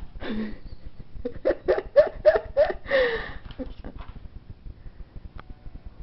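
A person laughing in a quick run of short bursts, about four a second, ending in one longer laugh that falls in pitch.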